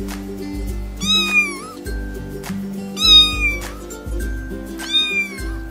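Kitten mewing three times, short high-pitched calls about two seconds apart, over background music.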